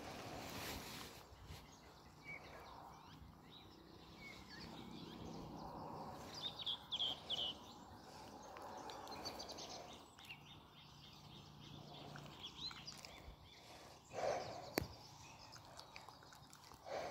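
Faint outdoor background noise with a few high bird chirps, the clearest a short run about six to seven seconds in. A single sharp click comes near the end.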